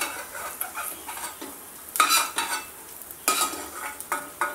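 Steel ladle scraping and clinking in a metal kadhai as fried potato pieces are scooped out of hot oil, the oil still sizzling faintly with the gas off. Several sharp scrapes, the loudest about two seconds and three seconds in.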